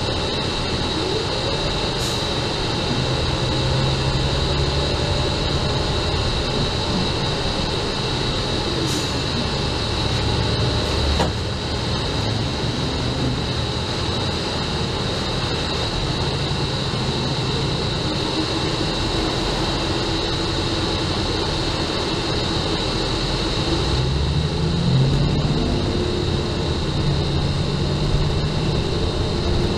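City transit bus heard from inside while riding: steady engine and road noise, the engine pitch rising and falling as the bus speeds up and slows, over a steady high-pitched whine. A single brief knock about a third of the way through.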